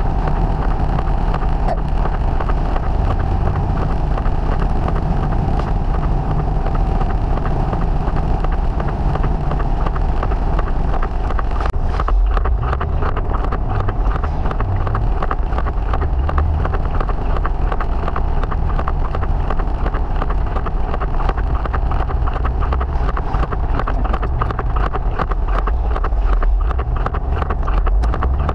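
Triumph TR5's fuel-injected 2.5-litre straight-six running steadily on the move, mixed with a steady hiss of tyres on the wet road and wind. From about 12 seconds in a fast, dense ticking runs through the sound.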